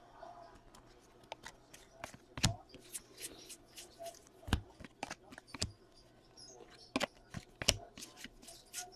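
Trading cards and pack wrappers being handled: soft rustling broken by sharp clicks and taps, a loud one every second or two.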